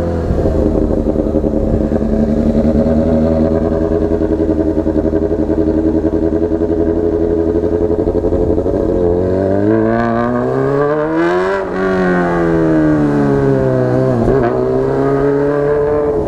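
Honda Hornet CB600F's inline-four engine through a megaphone exhaust, running steadily at low road speed. About nine seconds in it revs up, rising in pitch for a couple of seconds. After a brief break the pitch falls off, then it settles back to a steady run.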